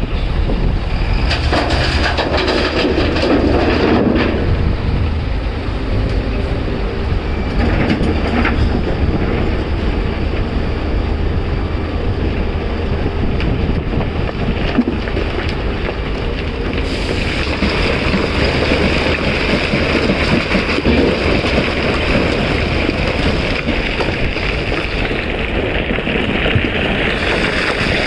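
Heavy machinery working: a Caterpillar 336 excavator's diesel engine running steadily under load. Its hydraulics and moving parts add a clattering mechanical din that grows brighter about two-thirds of the way through.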